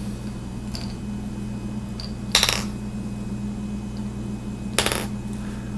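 Metal parts of a Sunwayman F40A flashlight clinking as its AA batteries and battery carrier are put back into the body: two sharp clinks about two and a half seconds apart, with a faint tick before them, over a low steady hum.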